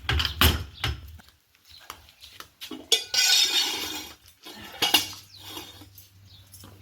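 Metal clanking and clinking, a series of sharp knocks with a longer scraping rush about three seconds in, typical of steel tools or jacking equipment being handled on a workshop floor.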